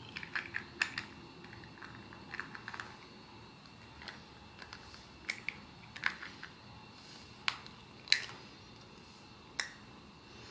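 Sharp little clicks and taps of hard plastic as a clear plastic dome is handled and fitted over the head of a small ABS/PVC collectible figure, a quick run of them in the first second and the loudest click about eight seconds in.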